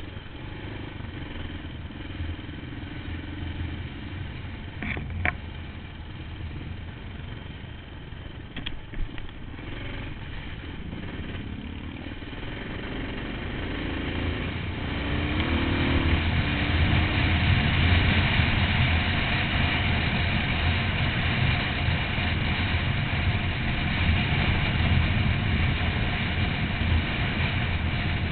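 Kawasaki KLX650's single-cylinder four-stroke engine running under way off-road, with wind noise; it grows louder from about halfway as the bike picks up speed. Two short sharp knocks come in the first third.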